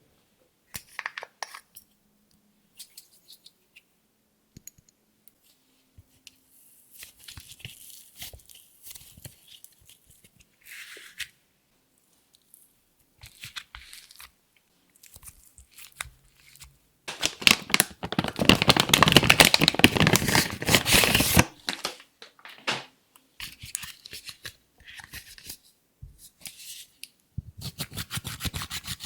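Clear slime worked by hand as makeup and glitter are mixed in: sticky crackling and popping in short bursts, with a long, loud run of dense crackling past the middle.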